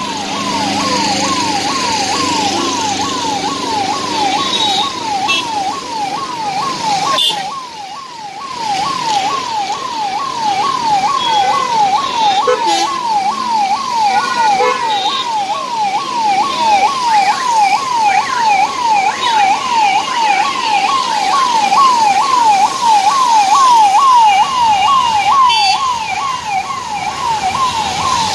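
A siren sounding a fast, even wail: each cycle is a quick rise in pitch and a drop back, repeating about twice a second without a break, over the noise of traffic on the road.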